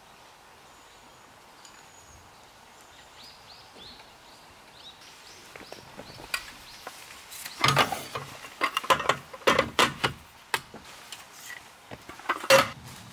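A run of sharp knocks and clinks, as of hard objects being handled and set down, coming thickly in the second half with the loudest knock near the end. It is preceded by a faint quick series of short high chirps.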